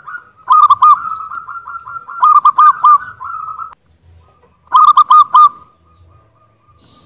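Zebra dove (perkutut) singing: a fast run of soft rolling coos, broken three times by a loud phrase of three or four ringing notes. The song pauses briefly before the third phrase, then trails off in faint notes.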